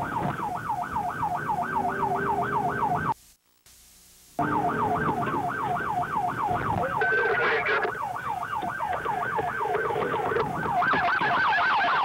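Police car siren on a fast yelp, its pitch sweeping up and down about four times a second. It cuts out for about a second around three seconds in.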